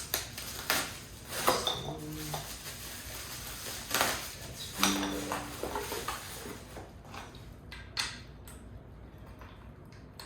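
Hard plastic knocks and clicks of rollerblade-style swivel wheels being handled and pushed into the sockets of an office chair's base, a series of separate sharp knocks spread through the first eight seconds or so, the loudest about four and five seconds in.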